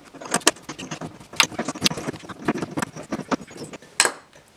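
Steel open-end wrench clicking and clinking against a rusty engine-mount nut as the nut is worked off its stud, in quick, irregular metallic ticks, with a sharper clink near the end.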